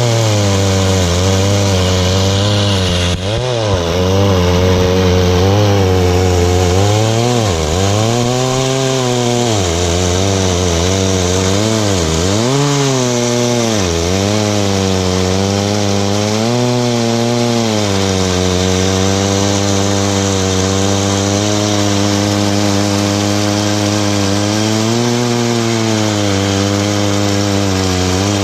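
Chinese-clone Stihl MS660 chainsaw with a 42-inch bar, mounted in a chainsaw mill, ripping lengthwise through a hard, dense red gum eucalyptus log. The engine runs loud and near full throttle under heavy load, its pitch sagging and recovering several times as the cut is pushed.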